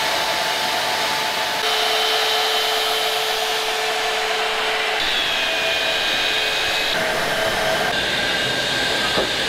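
Portable band saw running and cutting through metal stock: a steady whirring hiss with a constant whine over it, the whine changing pitch abruptly a few times.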